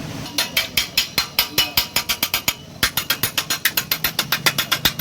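Rapid, even mechanical clicking, about five clicks a second, with a short break about halfway through.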